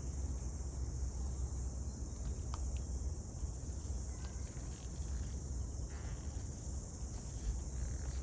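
Steady high-pitched chorus of insects, over a constant low rumble, with a few faint short chirps or ticks.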